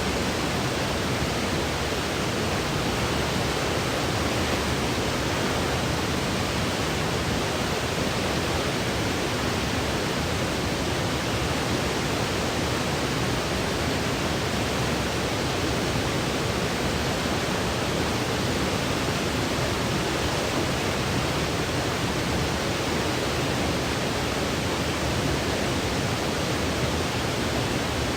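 Steady, unchanging noise, a smooth even hiss weighted toward the lower and middle pitches rather than bright and sharp, with no variation at any point.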